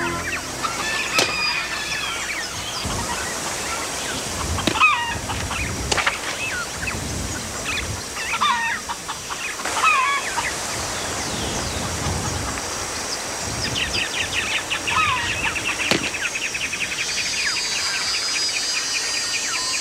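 Farmyard sounds: hens clucking and calling at intervals, mixed with bird chirps and a few sharp clicks. From about two-thirds of the way through, a fast, even high trill joins in.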